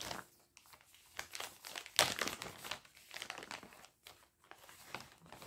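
Crinkly packaging of an embroidery kit being handled and opened, an irregular crackling and rustling that is loudest about two seconds in.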